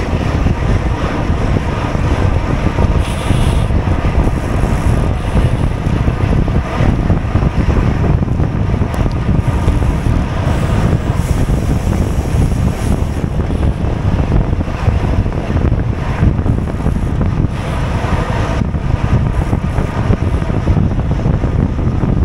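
Wind buffeting the microphone of a GoPro carried on a racing bicycle at speed: a loud, steady low rumble.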